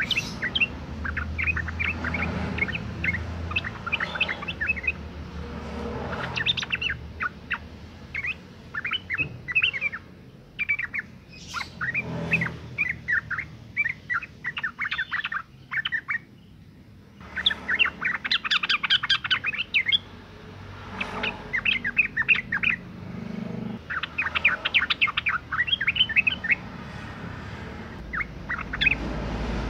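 Female yellow-vented bulbul (trucukan) calling: bouts of rapid, bubbling chirps, each lasting a few seconds, with short pauses between them. This is the call of a female in breeding condition, the call used to lure males into song.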